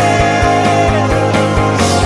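Rock music with a steady drum beat and a held note over a full band.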